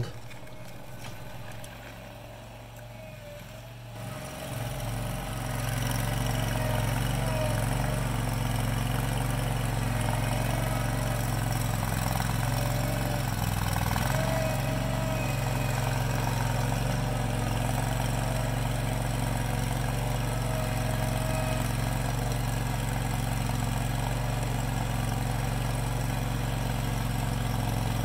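Vermeer CTX50 mini skid steer's engine running steadily while its grapple lifts and moves a cedar log, louder from about four seconds in.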